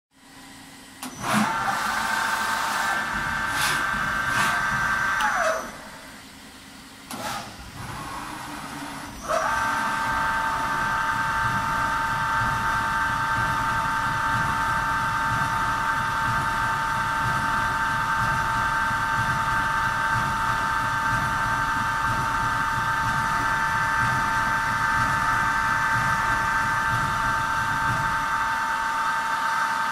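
Kondia B-1050 vertical machining center running with a steady electric whine. The whine winds up about a second in, winds down with falling pitch after about five seconds, then starts again with a click and holds steady until it winds down at the end.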